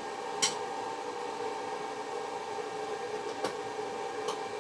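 Steady machine hum with a few light clicks, the first about half a second in and two more near the end.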